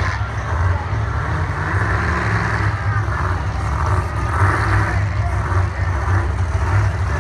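Monster truck engine running with a loud, deep, steady rumble, with a crowd of spectators' voices mixed in over it.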